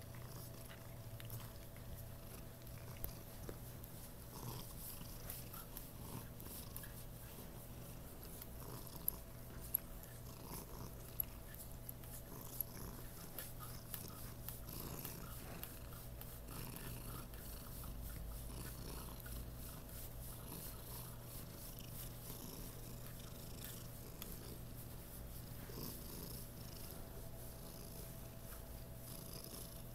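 Tortoiseshell cat purring steadily as it is stroked, close up. A few sharp clicks sound in the middle.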